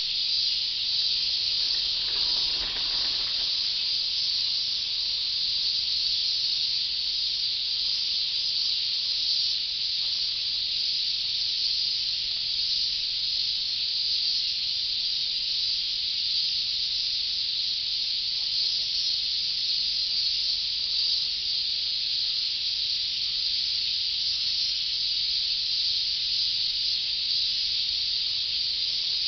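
Many cicadas singing at once in a dense, unbroken chorus: a steady high-pitched hiss.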